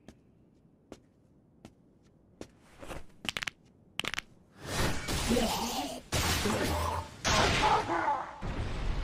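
Anime fight sound effects: a few sharp clicks, then a quick run of hits, and from about halfway on a dense barrage of heavy strikes and whooshes as a demon is hit, with a pained cry through it.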